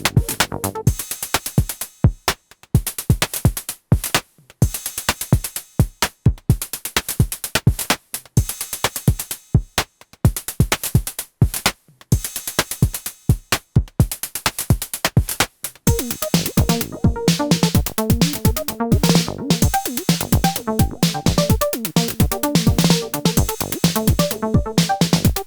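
Electronic drum-synth percussion playing a steady techno pattern at 128 bpm; about sixteen seconds in, a pitched synth bassline joins over the beat.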